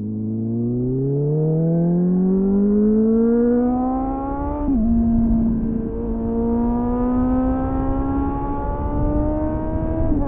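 2001 Suzuki GSF600 Bandit's inline-four engine through a loud SC-Project CR-T clone exhaust, accelerating with the revs climbing, then an upshift about four and a half seconds in. It then pulls again with the pitch rising slowly, and shifts once more near the end.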